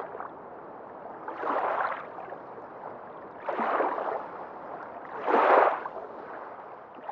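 Water washing in rhythmic surges about every two seconds, like small waves or strokes through the water, the loudest surge a little past the middle.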